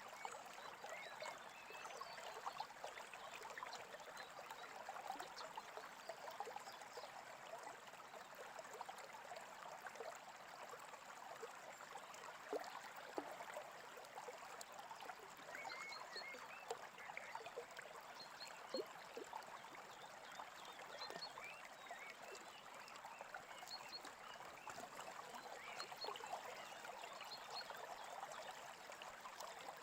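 A small brook babbling and trickling steadily, faint.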